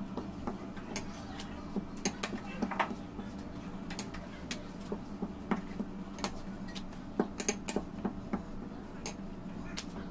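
Plastic rolling pin clicking and knocking irregularly against a granite countertop as red fondant is rolled out, over a steady low hum.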